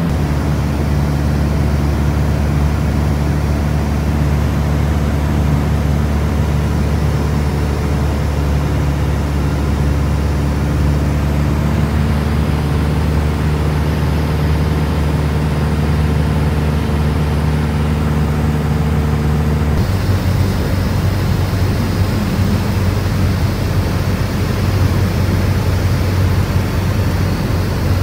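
Steady drone of a light propeller aircraft's engine heard from inside the cabin in flight, with a low, even hum. About two-thirds of the way through, the sound shifts to a noisier drone with a different hum.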